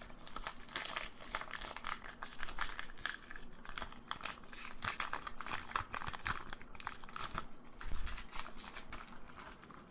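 Foil wrapper of a Pokémon trading card booster pack crinkling as it is torn open and worked apart by hand, a dense run of crackles that thins out near the end.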